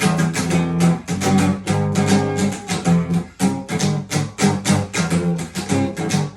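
Acoustic guitar strumming chords in a steady rhythm, several strums a second, as an instrumental passage of a song.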